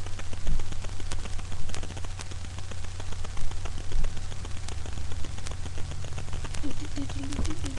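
Steady low electrical hum with scattered clicks and rubbing from a webcam microphone being handled. Near the end a low wavering tone begins.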